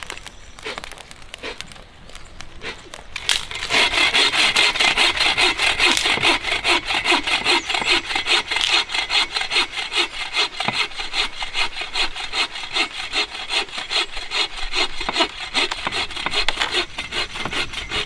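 Hand saw cutting through a dead wooden log with quick, steady back-and-forth strokes, starting about three and a half seconds in.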